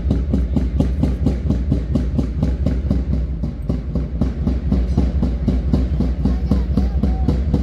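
Marching drums beating a fast, even rhythm, about four or five strokes a second, for a march past, over a low steady rumble.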